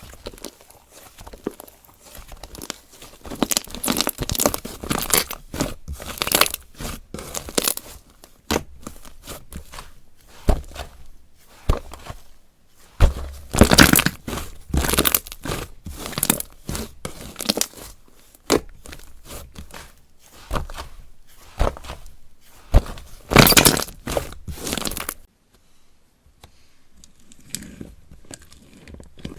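Slime being squeezed, stretched and mixed by hand, giving irregular bursts of sticky squelching and popping. It goes quieter near the end.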